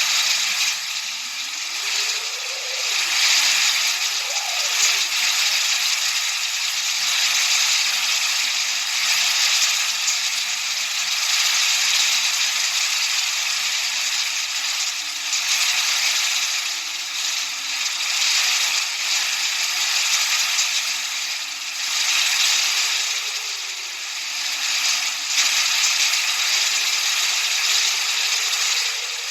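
Continuous masking noise, a dense hiss with a grainy, rattling texture, with faint low tones slowly rising and falling underneath it.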